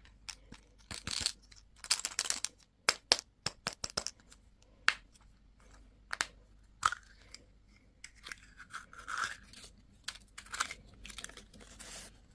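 Candy and toy packaging being handled and opened by hand: irregular crinkling and tearing of wrappers mixed with sharp plastic clicks.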